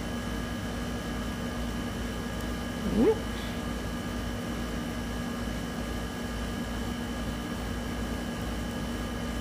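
Steady background hum and hiss holding a few constant tones, like an appliance or fan running. About three seconds in, a short sound that rises quickly in pitch stands out as the loudest moment.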